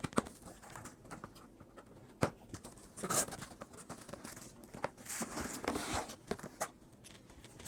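Cardboard box being opened and its contents handled: scattered knocks and clicks with brief rustles of packaging.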